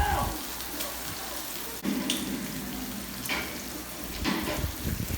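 Food frying in a hot pan, a steady sizzle with a few light clicks.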